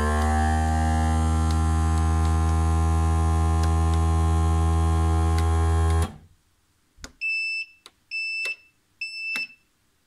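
Desktop vacuum former's vacuum motor running with a steady hum as it draws a heated PVC sheet down over keycaps, coming up to speed at first and shutting off suddenly about six seconds in. Three short electronic beeps follow, about a second apart, with a few clicks among them.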